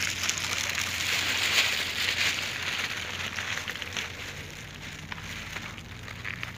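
Plastic bag rustling and crackling as it is handled, loudest in the first couple of seconds and then fading away, with faint scattered clicks.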